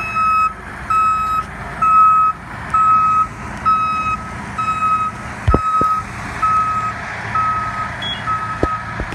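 Flatbed tow truck's reversing alarm beeping steadily, one tone a little more than once a second, over the truck's engine running, with a couple of short thumps in the second half.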